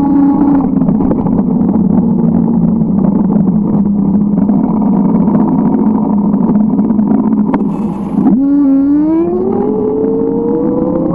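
Motor vehicle engine running steadily, then speeding up with a steadily rising pitch from about eight seconds in, over wind and road noise.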